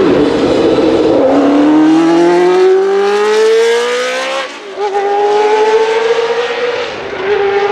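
Arrows A4 Formula 1 car's Cosworth DFV 3.0 V8 accelerating hard, its pitch climbing steadily. It changes up twice, about four and a half seconds in and again near the end, each time the pitch dropping briefly and then climbing again.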